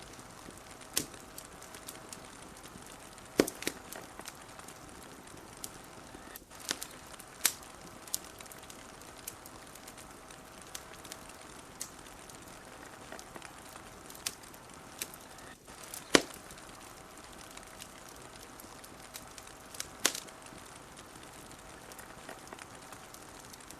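Wood fire crackling steadily, with a sharp loud pop every few seconds, over a constant soft hiss.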